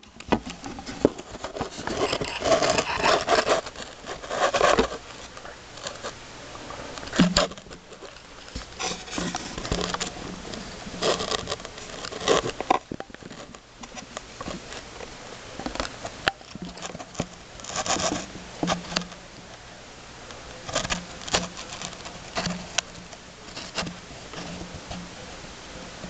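Mule deer buck feeding on bushes, with irregular rustling and scraping of branches and a few sharp clicks, in uneven bursts.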